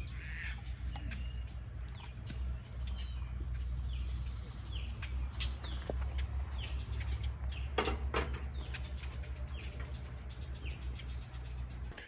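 Small birds chirping over and over with short, high, downward-sliding calls, including a quick rapid trill about nine seconds in, over a steady low hum. A couple of sharp knocks come about eight seconds in.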